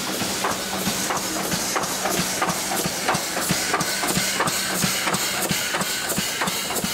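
Steam locomotive 50 3552 at a standstill, hissing steam, with a steady hum and a quick, regular ticking about three times a second.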